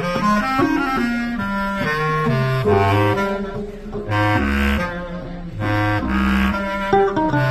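Royal Global Max bass clarinet playing a jazz line of low notes, each held about half a second to a second, in a duet with mandolin.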